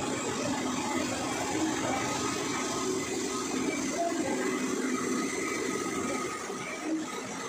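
Tea-processing machinery running in the factory hall, a steady mechanical hum with faint tones in it.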